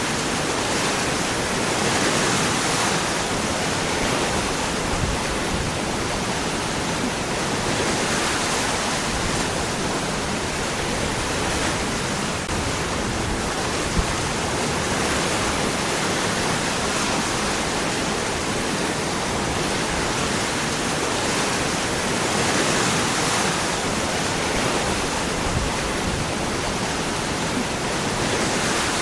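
Waterfall: water falling and splashing over rocks in a steady, even rush, swelling slightly every few seconds.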